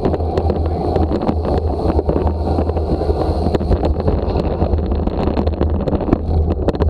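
Wind rushing over the microphone of a camera riding on a moving bicycle, over steady tyre-on-road noise. Many small clicks and rattles come from the bike rolling over the rough road surface.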